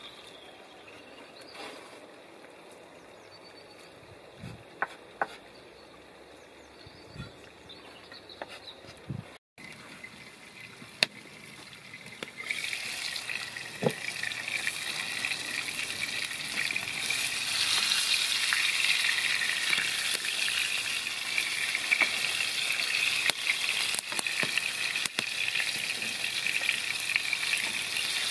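A few light knocks while chopped greens are mixed in a bowl, then green herb patties frying in oil in a pan over a wood fire: a steady sizzle that starts a little before halfway and grows louder.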